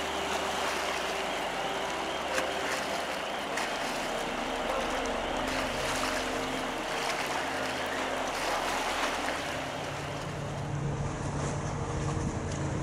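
Wightlink car ferry under way: a steady engine hum over the hiss of water churned by the hull. About ten seconds in the sound changes to a deeper, louder engine drone from a ferry close by.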